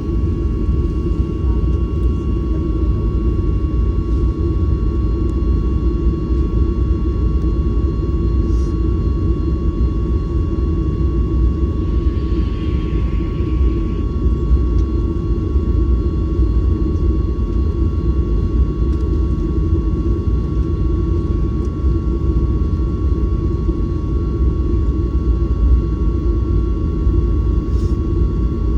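Boeing 737-900ER's CFM56 turbofan engines running, heard inside the passenger cabin as a steady low rumble with a steady high whine over it.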